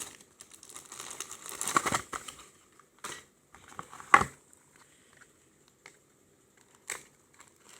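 Plastic packaging crinkling and rustling as phone accessories are handled out of the box, with a sharp knock about four seconds in, then mostly quiet.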